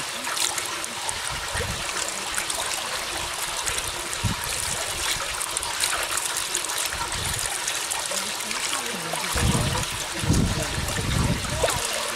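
Water pouring steadily out of a chute in a mud bank and splashing into a woven bamboo fish-trap basket, a continuous trickling rush. A few low rumbles come in near the end.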